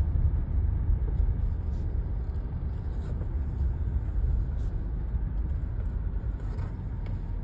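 Car driving slowly, heard from inside the cabin: a steady low rumble of engine and road noise that eases off a little toward the end.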